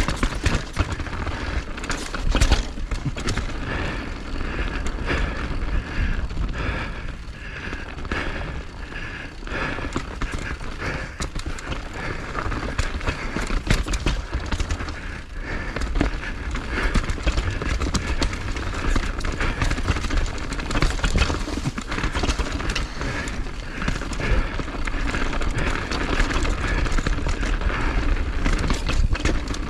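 Downhill run on a ski slope: edges scraping and chattering on packed snow through the turns, with wind rumbling over the microphone.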